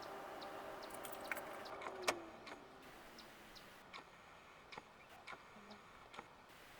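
A car's steady motor hum cuts off about two seconds in with a sharp click, its pitch sliding down as it stops. Scattered light clicks follow.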